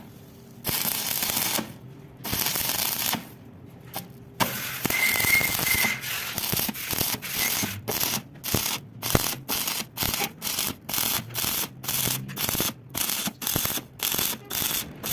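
Stick (arc) welding: the arc crackling and sizzling in bursts, with a few longer runs first, then broken into short pulses about two a second.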